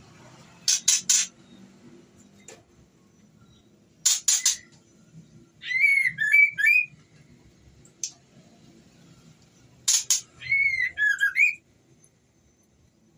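Female white-rumped shama calling to a male, in breeding condition: three bursts of quick harsh rasping notes, the later two each followed by a short phrase of squeaky whistled notes.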